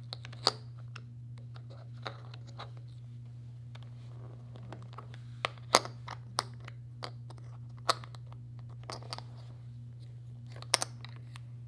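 Acrylic puzzle pieces clicking and tapping against each other and the acrylic tray as they are lifted, slid and set down by hand: scattered sharp clicks, a few in quick pairs, over a low steady hum.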